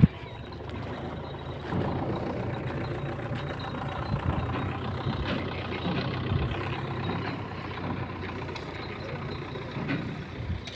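An engine running steadily, with a low hum.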